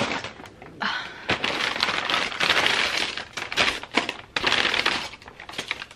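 Takeout packaging being handled: paper and plastic crinkling and rustling in a quick, uneven run of crackles.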